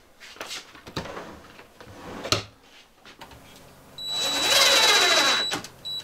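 DeWalt cordless drill running for about a second and a half, starting about four seconds in, with a steady high whine, drilling or driving a screw into the cabinet for a latch. Before it, a few light knocks and clicks of handling.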